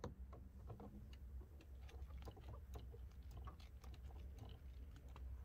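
Faint, irregular small clicks and ticks of a hand screwdriver turning a screw into the plastic door trim.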